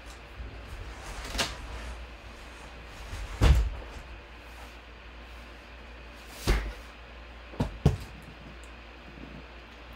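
A few sharp knocks and thumps of objects being handled and set down, the loudest about three and a half seconds in, another a few seconds later and a quick double knock near the end, over a steady low hum.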